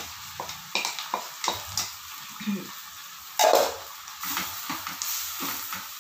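Shrimp scraped out of a plastic bowl into a hot nonstick frying pan of broccoli and bell pepper, then stirred with a plastic slotted turner: quick scrapes and taps on the pan, one louder clatter about three and a half seconds in, and the vegetables sizzling underneath.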